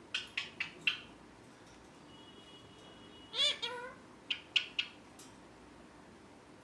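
Pet ringneck parrot calling: four short shrill chirps in quick succession, then a longer call that rises and falls in pitch about three and a half seconds in, followed by three more shrill chirps.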